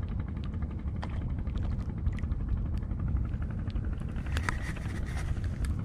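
Steady low rumble, with faint scattered clicks and ticks from handling the rod and winding fishing line onto a traditional wooden spool reel, more of them in the second half.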